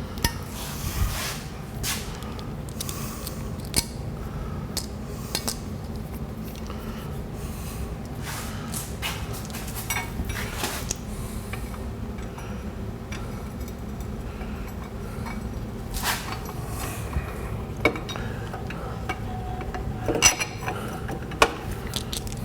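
Scattered metallic clinks and clatter of hand tools and steel parts being handled, over a steady low rumble.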